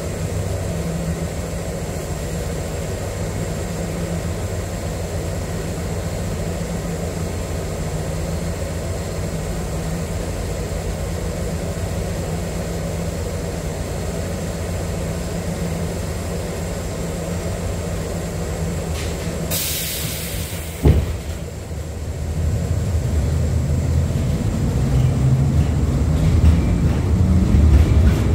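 LVS-86K tram running along the line, a steady low hum of motor and wheels on rails. About twenty seconds in there is a short hiss and a sharp click, after which the rumble grows louder and rougher.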